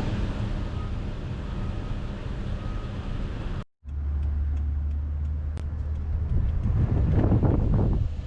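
A motor vehicle's steady low running drone. It cuts out abruptly a little under four seconds in and comes back as a steadier, stronger low hum, with wind buffeting the microphone near the end.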